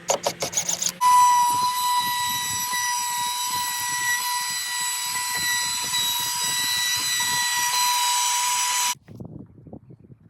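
Ryobi electric chop saw (miter saw) running, a loud steady high-pitched motor whine lasting about eight seconds that stops abruptly, after a few quick clicks at the start.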